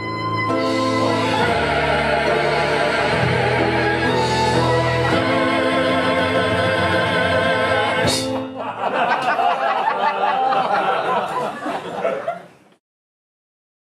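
Ensemble of singers and band holding sustained chords. About eight seconds in the music breaks off into a jumble of laughing voices, which fades out to silence.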